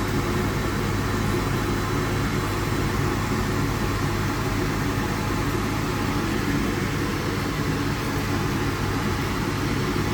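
Steady low hum and rush of running heating plant-room machinery, unchanging throughout.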